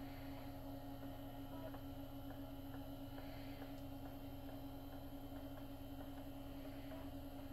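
Steady low electrical hum from running computer equipment, with a few faint, scattered ticks.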